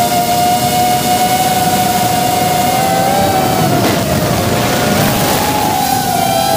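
Electric motors and propellers of a 3-inch FPV cine drone whining steadily in flight. The pitch wavers and splits between about three and six seconds in as the throttle shifts, with a brief rush of noise about four seconds in.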